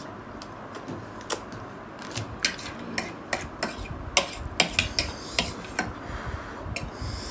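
Metal forks clinking and scraping against ceramic plates as noodles are picked up, a run of sharp, irregular clicks that starts about a second in and thins out near the end.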